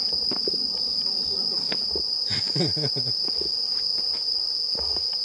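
Steady, high chorus of night-calling insects, one unbroken trill, with a few soft footstep taps on the path.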